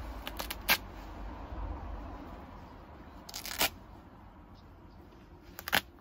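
Lacoste sports shorts being ripped by hand: short tearing bursts of fabric, one about half a second in, a longer one about three and a half seconds in, and another near the end, over low handling rumble.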